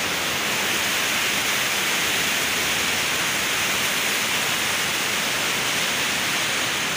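Turbulent white water rushing through a concrete channel at a sluice gate: a steady, even rushing noise.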